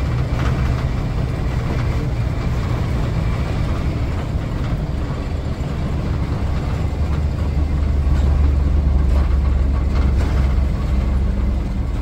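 Blue Bird Wanderlodge motorhome under way, heard from inside the cab: a steady low engine drone with road and cab rattle noise, growing louder about eight seconds in.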